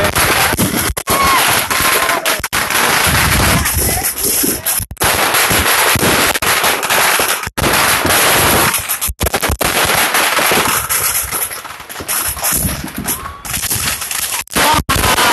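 Loud, almost nonstop rapid banging and crackling of many fireworks going off at once, aerial shells bursting among them, with a few short whistles.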